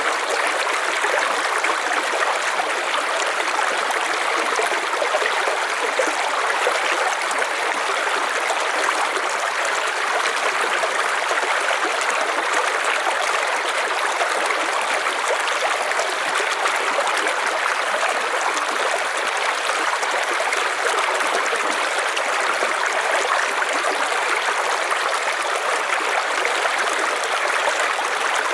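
River water flowing over stones, a steady rushing and burbling with no breaks.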